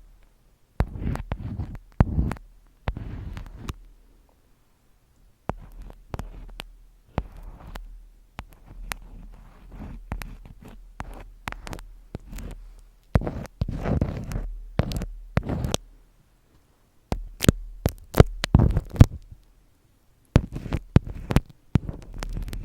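Close-miked ASMR trigger sounds: irregular sharp taps and clicks mixed with bursts of rubbing and rustling, with a low rumble from handling near the microphone and short pauses between.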